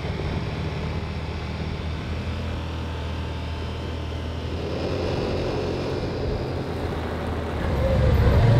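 Vehicle engine running steadily with road noise, heard from inside the cab, growing louder near the end.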